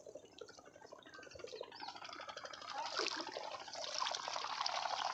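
Shallow river water sloshing and trickling as someone wades through it, growing louder from about two seconds in.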